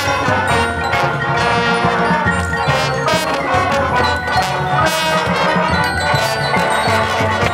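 Marching band playing at full, steady volume: brass over mallet percussion and drums.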